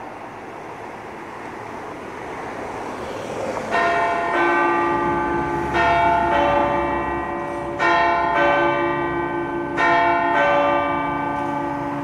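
Church tower bells starting a morning-prayer peal: the first strike comes about four seconds in, then the strikes fall in pairs about every two seconds, each ringing on under the next. Before the bells, a rushing background noise grows steadily louder.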